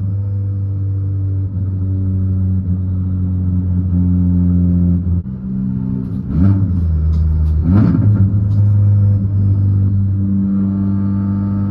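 Turbocharged 2.0-litre four-cylinder engine and single-exit aluminium exhaust of a tuned Golf R running at a steady low drone under light load. About six and eight seconds in, the engine note twice dips and swings back up, each time with a brief crackly rush.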